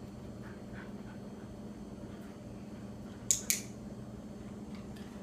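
Dog-training clicker pressed and released once, a sharp double click about three seconds in, marking the dog's correct response; a steady low hum runs underneath.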